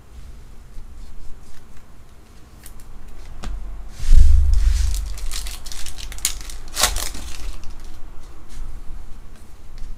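Trading-card pack wrapper being torn open and crinkled for about three seconds, starting with a dull thump about four seconds in, with light handling clicks of the cards before and after.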